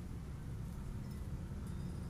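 A pause in the caged bird's song: only a steady low background rumble is heard, with no song.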